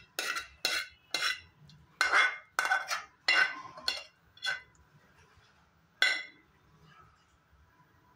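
Metal spoon scraping the inside of a metal pan, scooping cooked vermicelli out onto a plate: a quick run of short scrapes, about two a second, then a last one about six seconds in.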